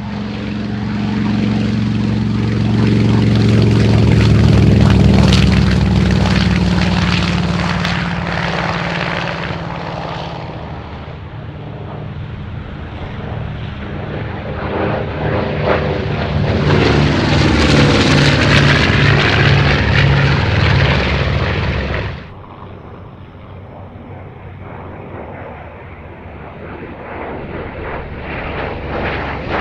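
Piston-engined World War II fighters with radial engines. A Mitsubishi A6M Zero runs at full power on its takeoff roll, loudest about five seconds in. A second fighter then passes overhead, its engine note rising and falling as it goes by, until the sound cuts off abruptly past the twenty-second mark. A Hawker Sea Fury's engine then grows louder near the end.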